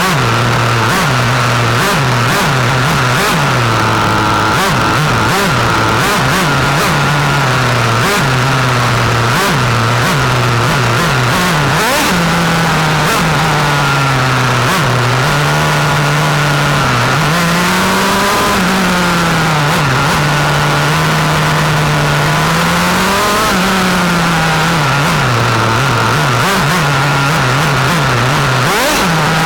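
1/8-scale glow-fuel nitro RC car engine, heard from a camera mounted on the car, its revs rising and falling again and again with throttle changes, over a steady high whine and scattered sharp ticks.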